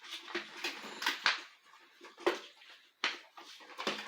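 Crinkling and rustling of a plastic toy wrapper being pulled and twisted by hand while trying to tear it open, in short irregular bursts.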